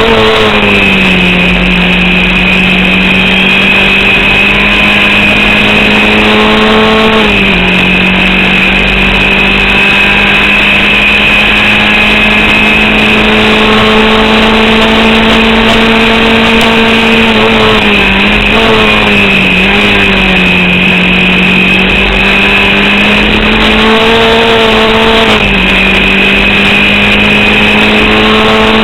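Formula Vauxhall 8v race car's engine at full throttle, its note sitting at a flat, capped pitch for long stretches. It dips briefly and climbs back several times, around 7 seconds in, twice near 18–20 seconds and again near 25 seconds, as the driver lifts or shifts. The engine is misfiring and short of power from an alternator/battery fault, which the driver says left only about 4500 rpm available late in the race.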